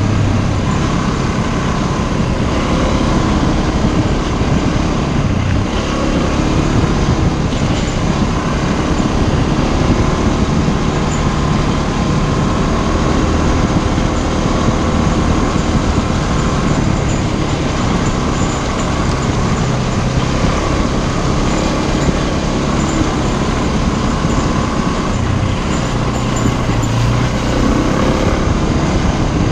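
Motorcycle being ridden along a dirt and gravel forest track: steady engine running and road noise from the tyres over the rough surface.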